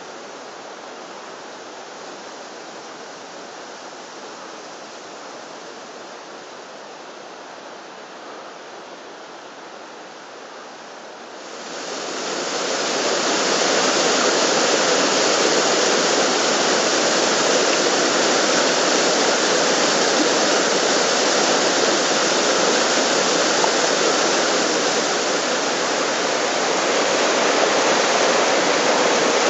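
Waterfall and cascading stream rushing over rocks, a steady noise of falling water. It is softer for the first dozen seconds, then rises to a loud, steady rush close to a partly ice-covered cascade.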